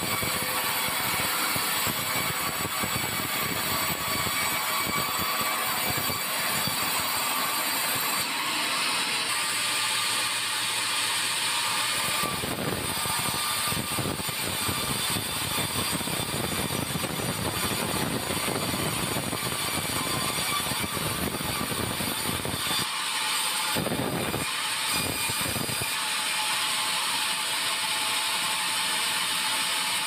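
Band sawmill running, its band blade sawing through a white meranti beam: a steady, loud hiss and whine of the blade. A lower rumble under it drops away for a few seconds at a time.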